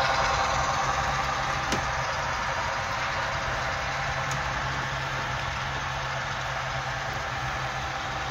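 Model passenger train rolling past on the layout track: a steady rushing rumble with a low hum, slowly fading as the train moves away. A small click about a second and a half in.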